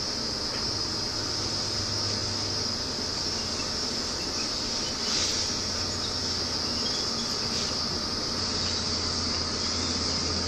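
Steady high-pitched insect chorus, a continuous trilling drone with no pauses.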